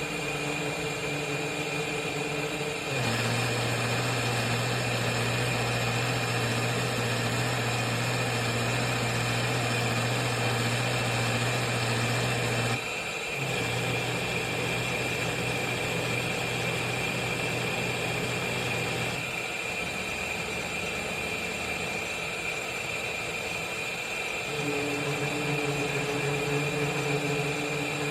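Roborock S8 Pro Ultra robot vacuum system's motors running: a steady hum with a constant high whine. The hum steps louder and deeper about three seconds in, dips briefly about halfway, and shifts back to its first pattern near the end.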